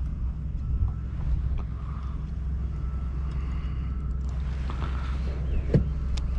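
Steady low rumble of wind buffeting the microphone on a fishing kayak, with a few light knocks.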